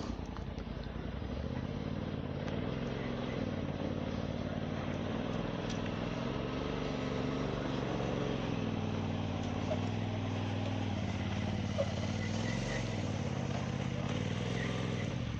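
Polaris RZR Turbo side-by-side's engine running at low revs while crawling over rock, its pitch rising and falling gently with the throttle. A single short click comes about three quarters of the way through.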